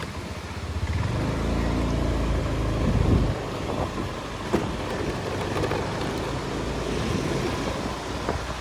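A motor vehicle's engine, building up about a second in and cutting off a little after three seconds, over a steady rushing noise.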